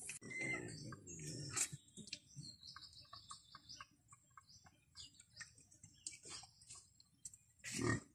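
Hen pecking at the pen floor and water trough: light, irregular taps. Faint high chirps come in the first few seconds, and a pig gives a short low grunt near the end.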